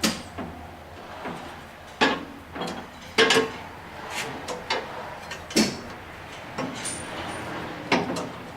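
Speed-change levers on a Clausing Nardini MS 1432E lathe being shifted: a series of sharp metallic clunks and clicks, about eight over several seconds, with the lathe's low hum cutting off right at the start.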